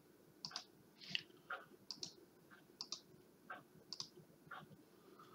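Computer mouse button clicking: about a dozen faint, short clicks spread over a few seconds, many in quick pairs.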